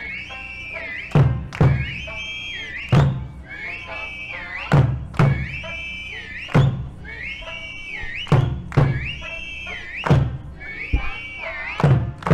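Eisa music: an Okinawan folk song sung to sanshin, with a heavy drum beat landing about every one to two seconds.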